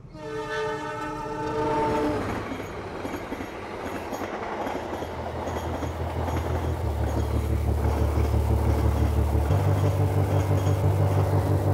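Passenger train horn sounding a chord for about two seconds, followed by the noise of the train passing. Low droning music rises underneath and dominates by the end.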